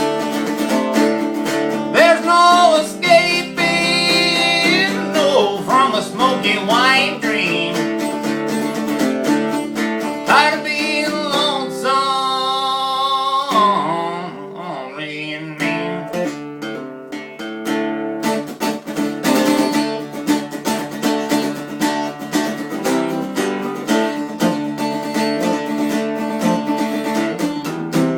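Strummed acoustic guitar accompanying a man singing a country song. The sung line stops a little before halfway, after one long held note, and the guitar carries on alone with strummed chords.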